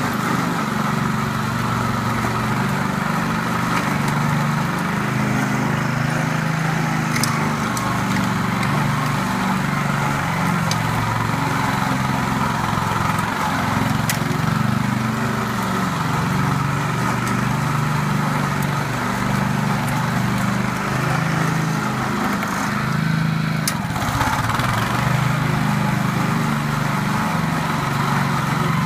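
Honda walk-behind lawn mower engine running steadily.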